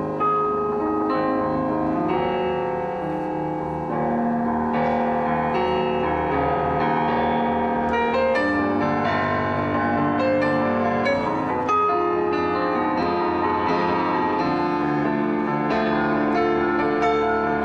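Instrumental piano music, a steady succession of held and overlapping notes.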